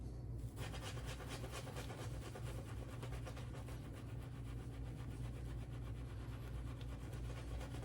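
Shaving brush with a Boti 26mm knot, swirling and whipping wet shaving-soap lather in quick, even strokes. The lather is still building after more water has been worked in. The brushing starts about half a second in.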